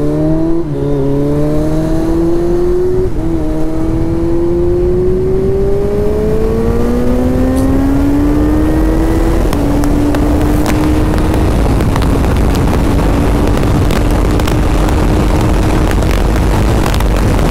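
Kawasaki Z900 inline-four motorcycle engine accelerating hard, its pitch climbing and dropping at upshifts about half a second in, about three seconds in and about nine and a half seconds in, then holding a steady high-speed drone. Wind rushing over the helmet microphone grows louder as speed builds.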